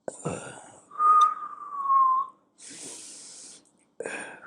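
A man breathing in and out to imitate an expiratory wheeze, the sign of narrowed small airways. Each in-breath is a quiet hiss, and each out-breath carries a steady whistling tone that falls slightly in pitch, twice.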